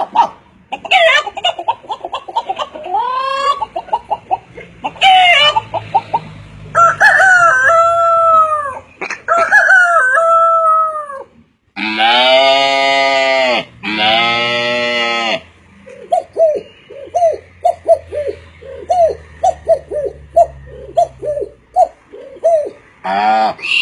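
A man imitating chickens with his voice: squawking, bending calls, then two long rooster crows about twelve seconds in, followed by a run of quick, even clucks.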